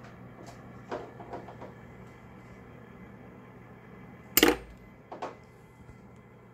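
Small plastic model parts and metal tweezers being handled, giving a few light clicks. About four and a half seconds in there is one sharp clack as the tweezers are set down on the table, followed by two lighter taps.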